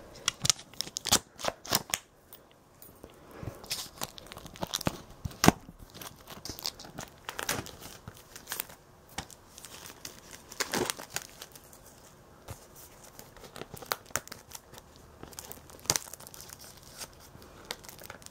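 Plastic shrink wrap being picked at and peeled off a disc case by hand: irregular crinkling and short tearing crackles.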